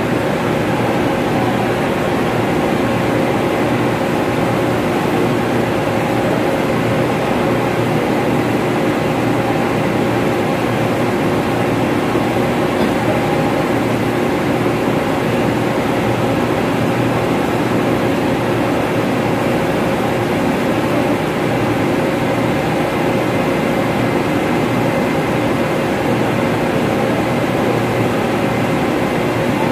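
Steady loud drone of running ventilation fan machinery, a constant rush with a few steady tones held in it.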